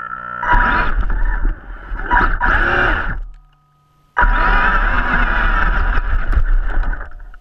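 Vaterra Twin Hammers RC rock racer under throttle, its electric motor drivetrain whining and its tyres churning through loose dirt, heard from a camera mounted on the truck. The sound comes in two long stretches: it stops short about three and a half seconds in, drops to near silence, and starts again abruptly about a second later before dying away at the end.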